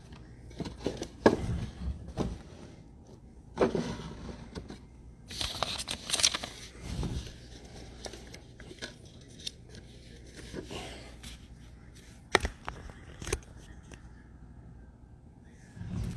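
Packaging being handled and torn open on a table: scattered clicks, knocks and scrapes, with a louder burst of crinkling and tearing about five to seven seconds in.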